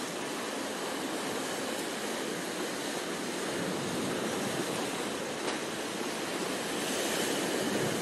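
Sea surf breaking and washing around shoreline rocks: a steady rushing of water that swells a little near the end.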